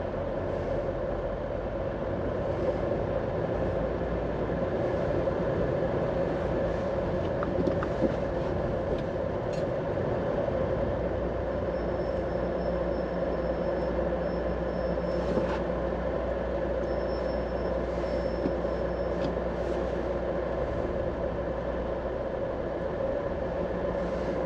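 Steady car and road noise while driving in traffic, with a faint high tone in two stretches and a few faint clicks.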